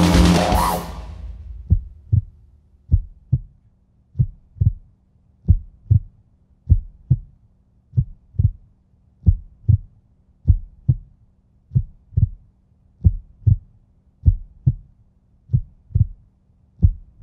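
Music fades out in the first second, then a slow heartbeat sound effect: paired low thumps, lub-dub, repeating about once every 1.3 seconds over a faint low hum.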